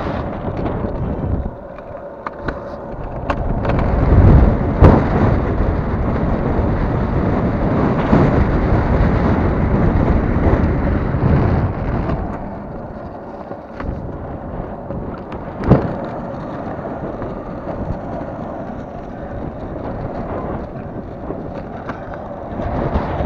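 Longboard wheels rolling over asphalt with wind buffeting the microphone, loudest in the middle stretch. One sharp knock about two-thirds of the way through.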